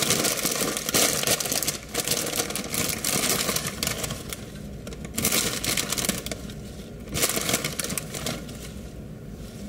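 Plastic bag of spring mix salad greens crinkling and rustling as it is opened and the leaves are shaken out onto a plate, in several bursts with short pauses between.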